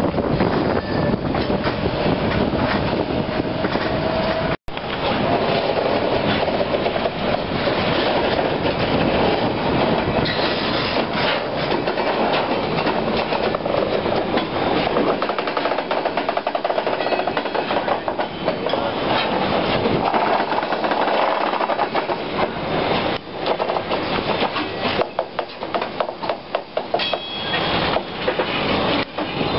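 Freight train rolling past at close range: steady rumble of steel wheels on rail with repeated clicking as the wheels cross rail joints. The sound cuts out for an instant about four and a half seconds in.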